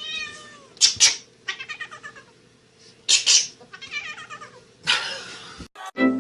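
A cat meowing several times in pitched, bending calls, with short harsh noisy bursts in between.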